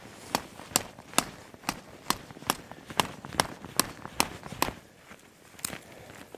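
Dry dead twigs and branches being snapped by hand, a quick run of about a dozen sharp cracks, a little over two a second, then two more spaced out near the end.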